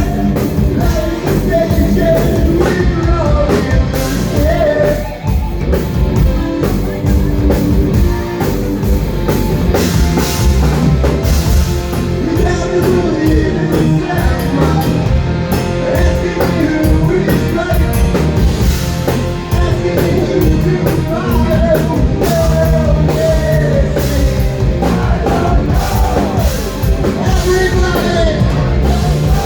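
Live rock band playing a heavy rock song, with a singer over drum kit and amplified instruments, loud and continuous.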